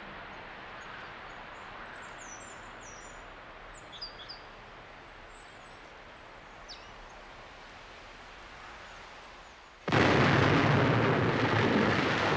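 Faint steady outdoor hiss with a few bird chirps, then about ten seconds in a sudden loud demolition explosion that goes on as a sustained rumble as a building is blown up.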